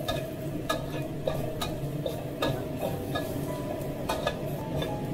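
Metal wok spatula scraping and clinking against a steel wok as dried chillies and minced garlic are stir-fried in a little oil, with frying sizzle underneath. The clinks come irregularly, about twice a second.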